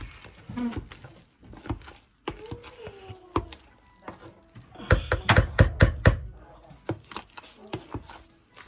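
Clatter of kitchen utensils and cookware: scattered clicks, then about five seconds in a quick run of loud knocks.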